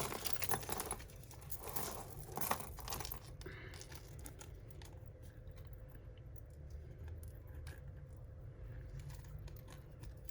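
Small metal costume jewellery chinking and rattling as pieces are picked through by hand, with a few light clicks in roughly the first three seconds, then only faint handling noise.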